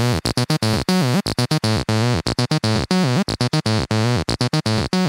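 Electronic music: a synthesizer chopped into rapid stuttering pulses, with repeated sweeps in pitch.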